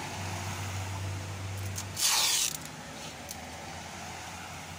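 Adhesive tape pulled quickly off its roll about two seconds in, a loud half-second tearing hiss, over a steady low hum that stops at the same moment.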